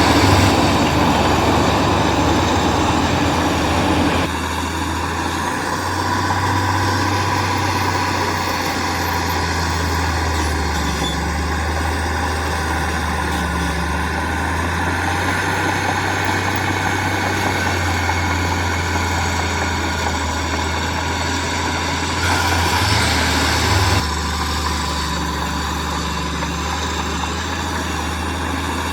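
Heavy construction machine engine running steadily with a low drone, with louder, noisier stretches in the first four seconds and again about three-quarters of the way through.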